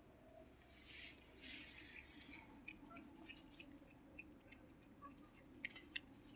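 Faint wet smacking and small clicks of a cat chewing food.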